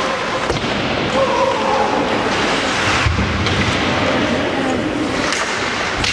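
Steady hubbub of spectators' voices in an ice hockey rink, with a thud about three seconds in and a few lighter knocks.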